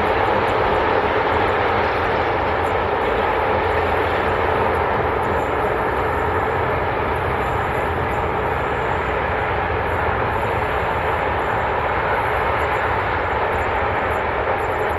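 Heavy freight train of loaded tank wagons rolling past: a steady, unbroken noise of wheels on rails.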